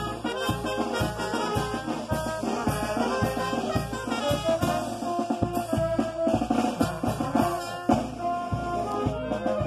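Brass band playing a tune: trumpets and trombones holding melody notes over a steady drum beat.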